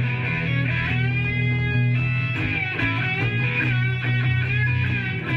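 Instrumental rock music: an electric guitar plays a lead line of moving, bending notes over a steady low bass.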